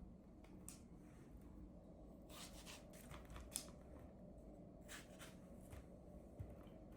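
Near silence: a few faint, light clicks and rustles of something being handled, over a low steady hum.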